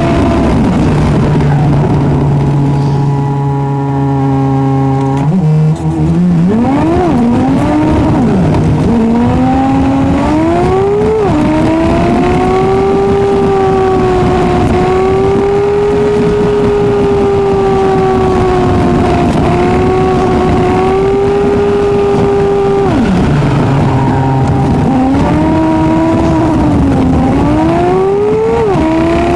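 Car engine heard from the cabin, sped up with the time-lapsed picture so it sounds high-pitched and fast. It runs low and steady at first, then climbs through the gears in quick rising sweeps that drop back at each shift. It holds a steady cruising pitch, falls back to a low hum about two-thirds of the way through, and pulls up through the gears again near the end.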